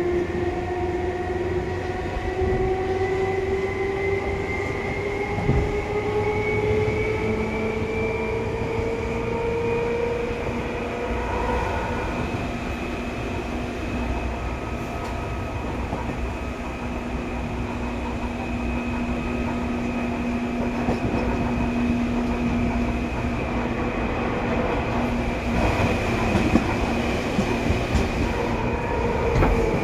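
Seibu 2000 series electric train heard from inside the car while running. Its motor whine rises in pitch over the first ten seconds or so as the train picks up speed, then holds steady, over a constant rumble of wheels on rail.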